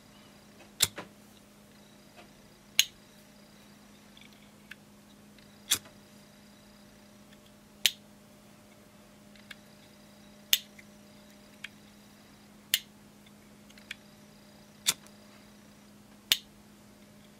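Sharp metallic clicks of a restored 1926 Orlik sterling silver petrol lighter's mechanism being worked over and over: about eight loud snaps two to three seconds apart, with fainter clicks between.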